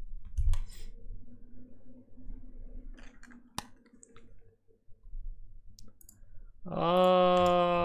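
Scattered sharp clicks over a faint hum. About seven seconds in, a loud, steady droning tone with many overtones starts abruptly and holds.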